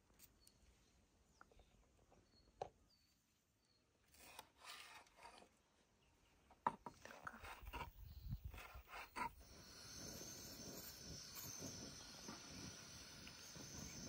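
Quiet knife taps and knocks on a wooden cutting board while food is diced, a few seconds in, ending after about nine seconds. Faint bird chirps are heard early, and a steady high insect buzz begins near the end.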